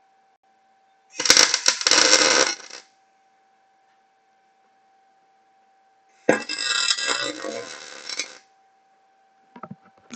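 MIG welder arc crackling in two short bursts, each about one and a half to two seconds, as tack welds join wire mesh to an angle-iron frame. A few faint clicks follow near the end.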